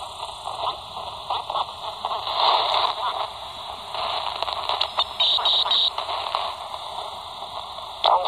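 Hiss and static from the Albrecht AE2990 AFS handheld CB radio's speaker, receiving on sideband in the 27 MHz band with no clear station, with faint brief crackles in the noise. A sharp click comes near the end, followed by louder hiss.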